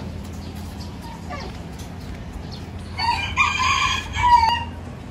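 A rooster crowing once, one drawn-out call starting about three seconds in and lasting about a second and a half, ending on a held note.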